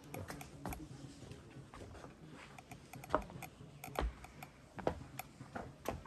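Irregular light clicks and knocks, with a few sharper ones about three, four and five seconds in.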